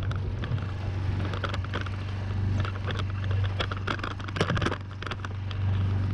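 Outboard motor running steadily at trolling speed, a low even hum. Over it come irregular clicks and knocks from the camera being handled and repositioned.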